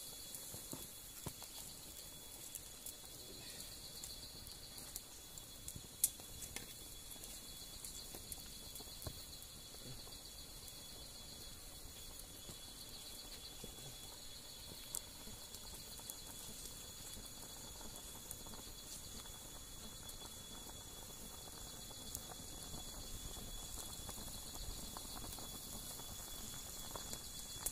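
Insects buzzing steadily in high, fast-pulsing bands. Under them a wood campfire crackles with scattered small clicks and pops, and one sharper crack about six seconds in.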